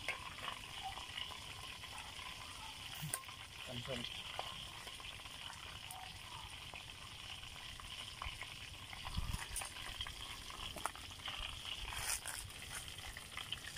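Duck deep-frying in a wok of hot oil, a steady sizzle, with a few sharp clicks as metal tongs knock against the wok.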